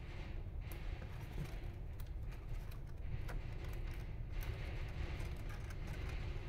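Faint, scattered clicks and taps of small wire connectors being handled and pressed onto a circuit board, over a steady low rumble.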